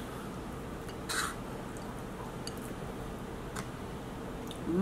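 Small eating and handling sounds from king crab legs: one brief wet squish about a second in, then a faint click and a few light ticks.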